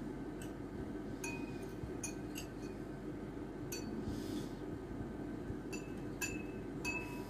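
A metal spoon clinking against glass tumblers of water as it stirs them: about eight irregular, light clinks with a short ring, over a steady low hum.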